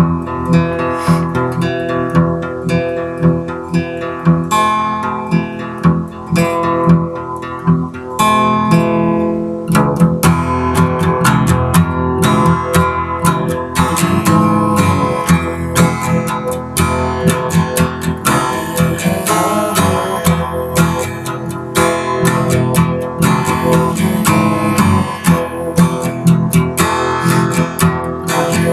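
Acoustic guitar playing a song's instrumental intro on its own, sparser at first and fuller and busier from about ten seconds in.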